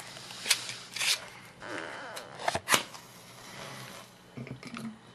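A matchbox being handled and a match struck on it, heard as a few short scratches and sharp clicks.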